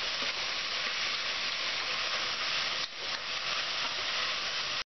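Sliced onion, shallots, garlic, ginger, curry leaves and coconut pieces sizzling in hot oil in an aluminium pressure cooker as they are sautéed and stirred with a spatula. A steady frying hiss that dips briefly about three seconds in.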